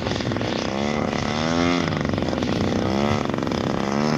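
Engine and propeller of a large radio-controlled model warbird on its landing approach, its pitch rising and falling several times with the throttle.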